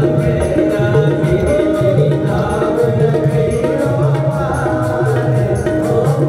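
Hindu devotional song with tabla and singing over a steady beat.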